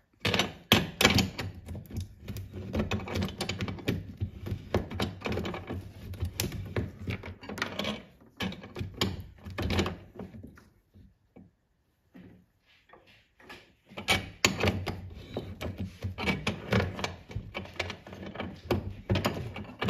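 Combination spanner working the wiper spindle nut on a VW Karmann Ghia's scuttle panel: repeated sharp metallic clicks and taps as the spanner bites, slips and is reset on the nut. There is a quiet break of a few seconds near the middle.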